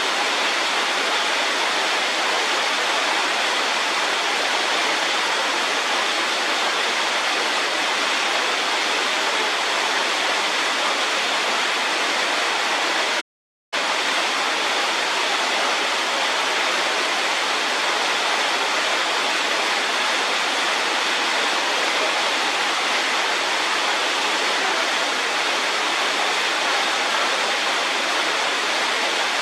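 Steady, even rushing noise with no changes, broken by a half-second dropout to silence about thirteen seconds in.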